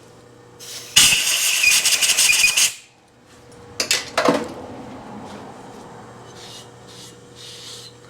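A compressed-air blow gun gives one loud hiss with a faint whistle, lasting under two seconds, starting about a second in, typical of blowing chips out of a drilled stud hole before tapping. A few sharp clicks follow.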